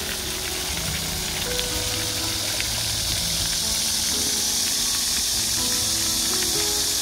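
Garden fountain's water jets spraying and splashing as a steady hiss, growing a little louder a few seconds in, with background music.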